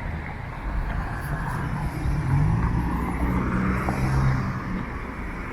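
City street traffic: a motor vehicle's engine running close by over the low rumble of traffic, its engine note rising slightly and loudest from about two to four seconds in.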